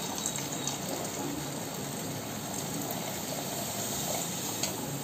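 Milk pouring in a steady thin stream from a plastic jug into a metal kadai of hot gravy, with a faint click near the end.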